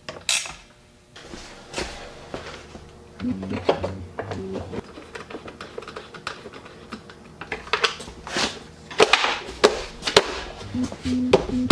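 Scattered clicks and knocks of plastic and metal parts being handled as the air compressor's plastic shroud is refitted by hand.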